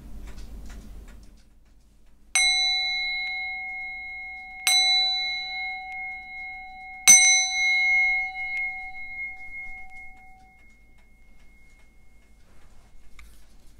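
Brass singing bowl struck three times with a wooden striker, each strike ringing in clear tones, the third strike left to ring out for several seconds; it is rung to open a prayer for peace. A faint click near the end as the bowl is set down.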